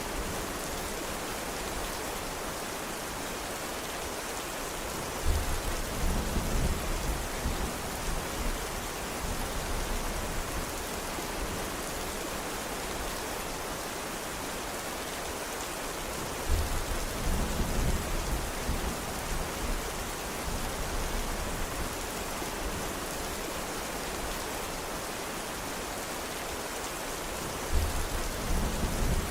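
Steady rain falling, an even hiss. Three short low rumbles break in suddenly, about eleven seconds apart, each fading after a couple of seconds.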